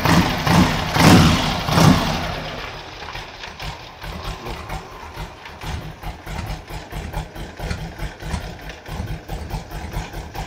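Harley-Davidson Ironhead 1000 cc V-twin running through fishtail exhaust pipes. It is blipped three times in the first two seconds, then drops back to an uneven, pulsing idle.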